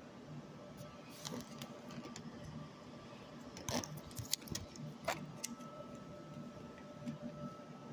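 Scattered small clicks and light metallic rattles, a cluster about a second in and a busier run around four to five and a half seconds in, over a faint steady hum.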